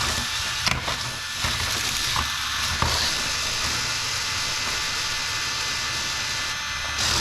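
Small electric motors of Hexbug mini BattleBots toy robots whirring steadily as they drive and fight, with a few sharp plastic clacks as they collide.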